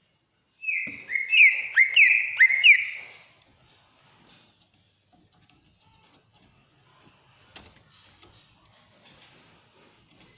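Cucak ijo (greater green leafbird) giving one shrill burst of song: about two and a half seconds of piercing whistled notes with sharp up-and-down glides, starting about half a second in. After it come only faint rustles and a single click.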